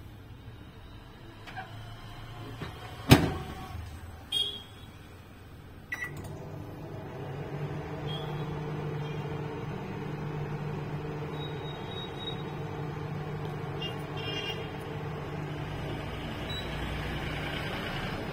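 Samsung microwave oven: its door shuts with a sharp click about three seconds in, a few short high beeps follow, and about six seconds in the oven starts running with a steady hum that lasts to the end as it heats a bowl of cashews.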